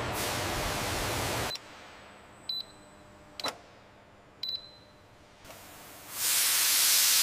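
Steam hissing, cutting off about a second and a half in. Then three short, high electronic beeps about a second apart, and near the end a louder rush of steam hiss from a valve venting.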